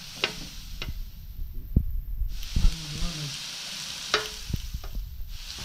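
Thin slices of raw beef sizzling on a hot ridged grill pan as they are laid down, a steady frying hiss. Sharp clicks of metal tongs come near the start and again about four seconds in.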